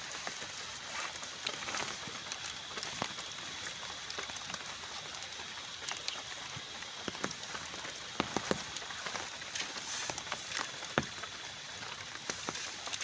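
Steady rain falling, with individual heavy drops striking close by in irregular sharp taps, a few louder ones bunched together past the middle.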